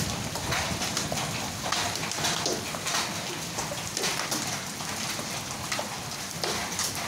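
A hailstorm: hail and rain pelting down, a dense steady hiss broken by many sharp ticks of hailstones striking.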